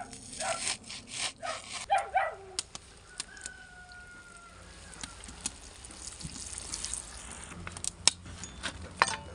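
A knife slicing through onion on a board, with a dog barking a few short times over it, then hot oil sizzling in a cast-iron cauldron, the sizzle growing steadily louder.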